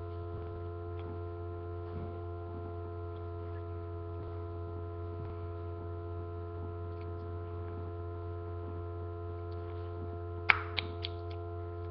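Steady electrical hum from a webcam's microphone, with a low buzz and several steady higher tones. About ten and a half seconds in comes a short cluster of sharp clicks.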